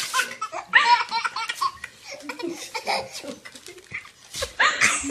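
A toddler laughing hard in repeated bursts of belly laughter. The bursts are loudest in the first two seconds, go quieter in the middle and break out again near the end.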